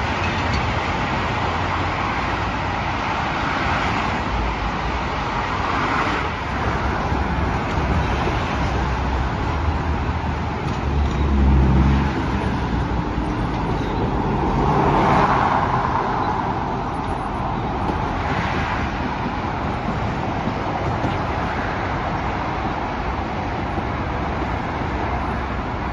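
Steady expressway traffic noise, with cars and trucks passing one after another in several swells; a low rumble builds to the loudest point about eleven seconds in.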